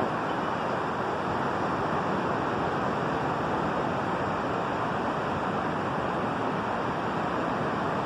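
Steady, unbroken wash of ocean surf mixed with wind.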